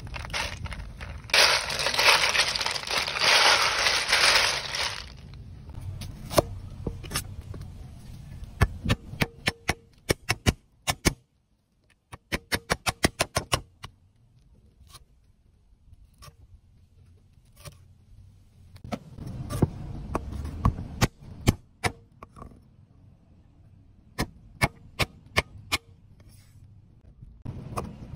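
A meat cleaver chopping on a thick round wooden chopping block as lemongrass and red chillies are cut: sharp knocks, some single and some in quick runs of several strikes. Near the start, a few seconds of crunching, rattling noise from ice cubes shifting in a basin of live eels.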